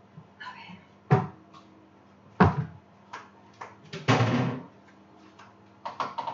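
Kitchen cupboard doors knocking open and shut, with cookware handled as a strainer is got out. There are several sharp knocks, the loudest about two and a half seconds in, and a short clatter of about half a second around four seconds in.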